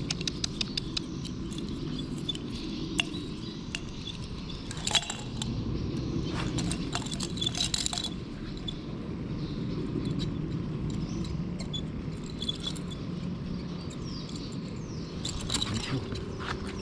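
Small clicks, taps and scrapes of hands handling a knotted monofilament fishing line and plastic floats as the tangle is worked free, over a steady low background rumble.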